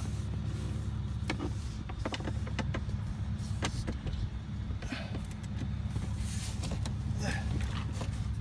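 Scattered small clicks and taps of a tool and plastic trim as the screws holding a glove box are worked out, over a steady low hum.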